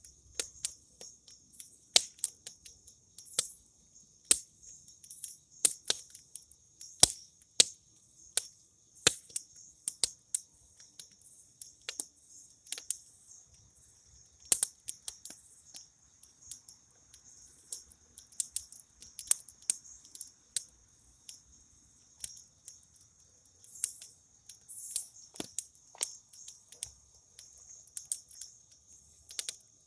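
Campfire crackling, with irregular sharp pops and snaps a few times a second, over a steady high-pitched chorus of crickets.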